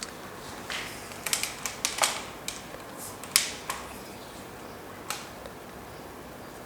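Scattered light clicks and taps of hands handling small hard objects, about a dozen in the first five seconds, then only faint room noise.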